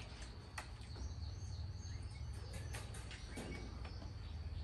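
Outdoor background of birds chirping over a low steady rumble, with a few light clicks of spoons against plates and bowls.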